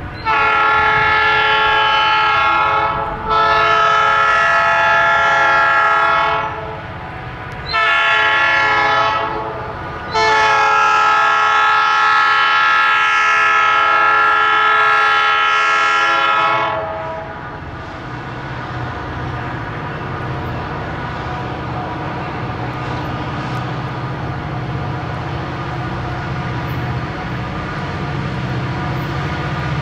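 Diesel locomotive air horn sounding the grade-crossing signal: two long blasts, a short one, then a long one. After the horn stops, the low rumble of the two EMD SD40-2 locomotives' 16-cylinder two-stroke diesels grows louder as they approach.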